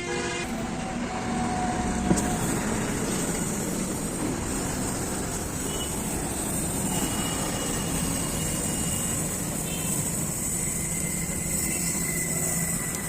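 Welding gun arc crackling and hissing steadily as a broken joint on a child's bicycle frame is welded, starting with a sharp snap about two seconds in.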